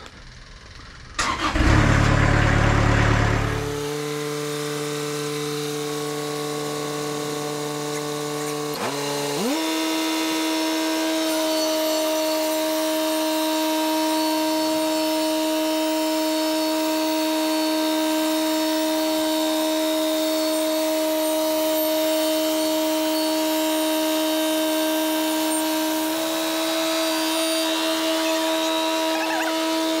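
Timberking 2000 sawmill's engine starting about a second in and running at a low speed, then revving up around nine seconds in and holding a steady, higher speed.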